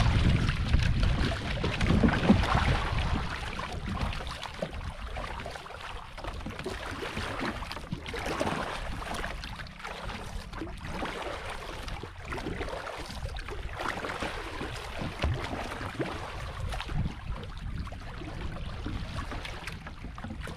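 Wooden paddle strokes dipping and pulling through the water beside a small outrigger canoe, every second or two, with water washing along the hull. Wind buffets the microphone for the first couple of seconds.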